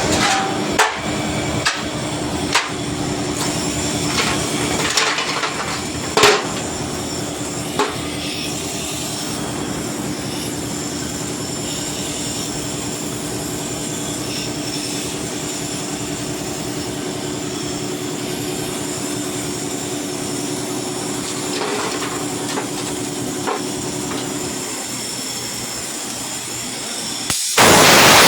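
Arc (stick) welding: the arc crackling steadily over a low hum, with a few sharp knocks in the first eight seconds. A loud, even hiss cuts in abruptly near the end.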